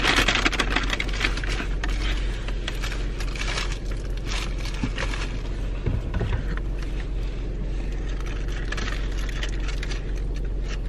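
Paper fast-food wrappers and bag crinkling and rustling as food is unpacked, over a steady low hum inside a car.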